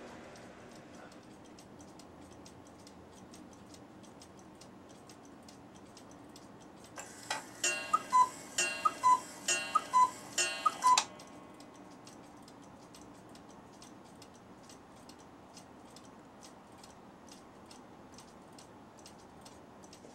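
Cuckoo clock movement ticking steadily, with a run of two-note cuckoo calls, each falling in pitch, for about four seconds from around seven seconds in: the freshly cleaned and oiled clock calling after its hands are set to twelve.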